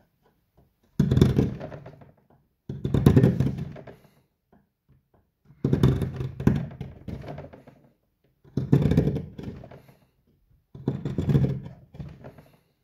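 Hand carving chisel being pushed through the wood of a bowl blank: five separate cuts, each a crunching scrape that starts sharply and fades over about a second.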